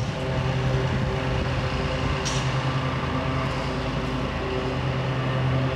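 A steady low droning hum with a strong low tone and fainter overtones, even in level throughout.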